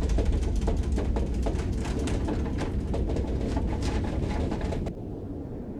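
Rocket engines at liftoff: a deep, loud rumble with dense crackling over it, dropping in level about five seconds in.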